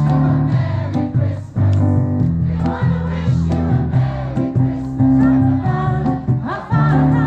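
A crowd singing a Christmas carol together, accompanied by live amplified music with guitar and a strong bass line.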